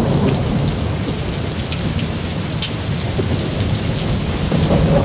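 AI-generated thunderstorm sound effect from Sony's Woosh text-to-audio model: steady heavy rain with scattered drop ticks over a continuous low rumble of thunder.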